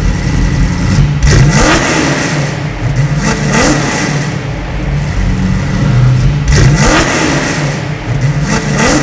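A 400-cubic-inch V8 engine in a modified Holden Commodore being revved in several blips. Each time the pitch climbs quickly and then drops back towards idle.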